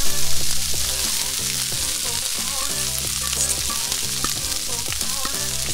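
Fresh corn kernels going into hot canola oil in a heavy skillet and frying with a steady sizzle, loudest in the first half-second as they land, with the scrape of a metal bowl as the last kernels are tipped in.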